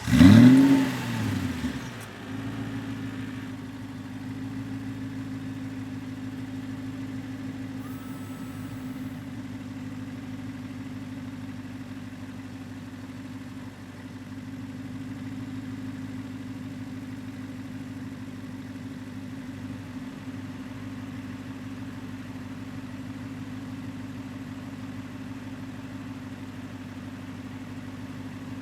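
Aston Martin engine starting with a sharp rev flare that rises and falls away within about two seconds, then settling into a steady idle.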